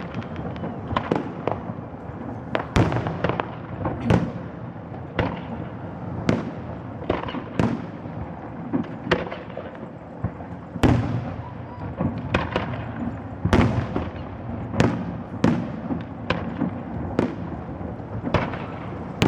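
Fireworks display: aerial shells bursting in a string of sharp bangs, roughly one every second, each trailing off in an echo, with crackling in between.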